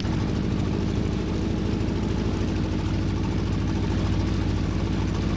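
Small boat's outboard motor running steadily at a constant speed as the boat moves, with a hiss of wind and water over it.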